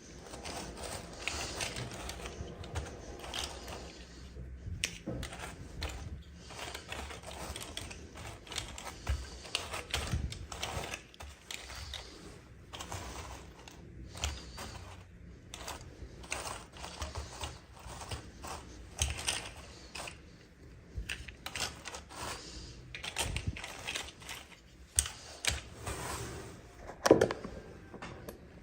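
Irregular small clicks, taps and rattles of hands handling plastic toy pieces and packaging while unboxing miniature dolls, with a sharper knock near the end.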